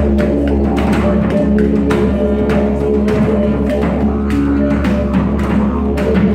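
Live instrumental jam: a didgeridoo holds a steady low drone under frequent hand-percussion strikes, while a wind instrument plays held melodic notes.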